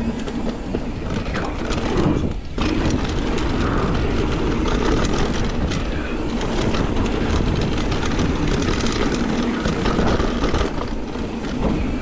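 Mountain bike rolling fast down rough dirt singletrack: steady tyre noise with constant clicking and rattling as the bike chatters over the bumps.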